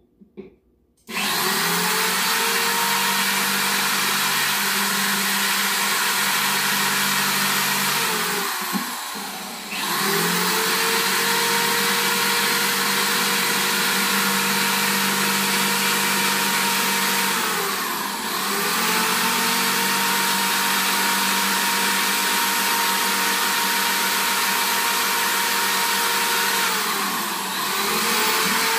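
Corded electric drill running at high speed, drilling holes in a plastic plant pot. The motor starts about a second in, winds down and spins back up about a third of the way through, dips briefly near the middle and again near the end.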